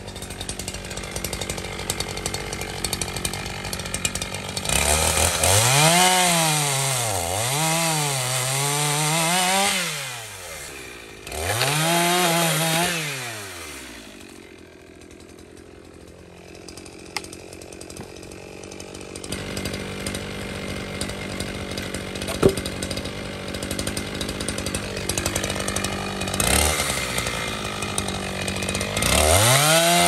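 Chainsaw idling, then revved hard several times as it cuts into a dry tree stump, its pitch rising and sagging under load before dropping back to idle. One sharp knock stands out about two-thirds of the way through.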